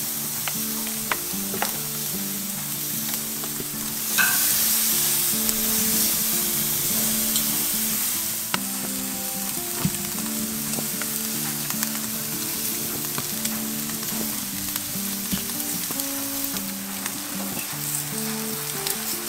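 Crocodile steaks and bacon-wrapped crocodile sosaties sizzling on a braai grid over hot coals, with scattered crackles and pops; the sizzle grows louder about four seconds in. Background music plays underneath.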